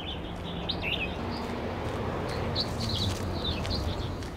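Birds chirping in short scattered calls over a steady background of outdoor noise.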